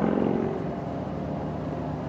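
A passing motor vehicle's engine fading away; after about half a second only a fainter steady hum remains.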